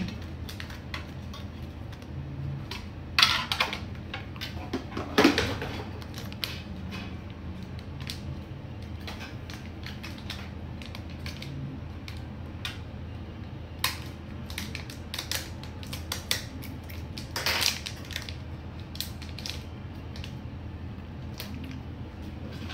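Hands handling small parts and packaging on a workbench while fetching a replacement Face ID flex cable: scattered light clicks and taps, with short rustles about three and five seconds in and again near seventeen seconds, over a low steady hum.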